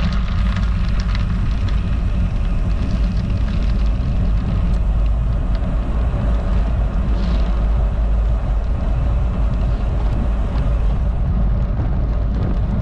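Steady low rumble of wind buffeting the microphone, mixed with tyre noise from a road bicycle rolling at speed on a rough country road.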